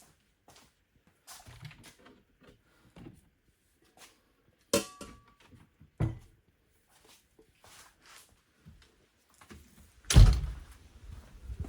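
Objects being handled: scattered small clicks and knocks, a sharp knock with a brief ring about five seconds in, another knock a second later, and a heavy thunk near the end.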